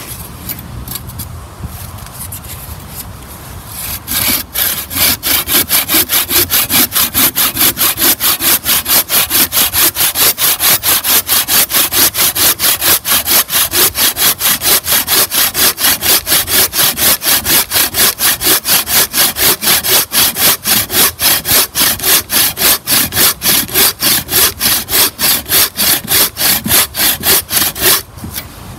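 Buck saw blade cutting through a log in fast, even push-pull strokes, about three a second. The sawing starts about four seconds in and stops just before the end.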